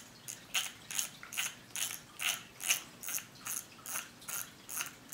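Front drag knob of a Shimano Aernos 4000 spinning reel being screwed down by hand, its drag clicker ratcheting in short runs of clicks about two to three times a second. The drag is being tightened, which also locks the spool back onto the reel.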